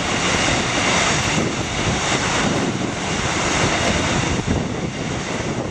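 Melbourne suburban electric train passing close below, a loud steady rush of wheel and rail noise.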